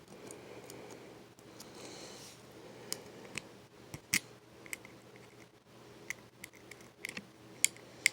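Lock pick and tension wrench working the pins inside a 44 mm laminated steel padlock: a scattering of sharp, irregular metallic clicks and light scraping.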